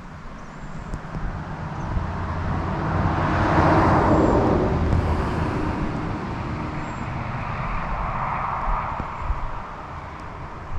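A vehicle passing on the road, its tyre and engine noise swelling to a peak about four seconds in and then fading, with a second, smaller swell near eight seconds.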